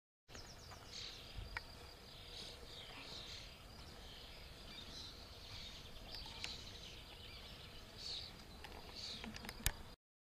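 Faint open-field ambience: short, high-pitched wild bird calls come every second or so over a steady, faint, high insect-like buzz. A single sharp click near the end.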